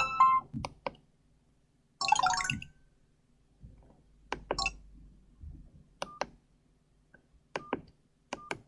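Medion M5511 mobile phone: a ringtone melody cuts off at the start, a short chirpy tone plays about two seconds in, then sharp key clicks, several with short keypad beeps, as the phone's buttons are pressed.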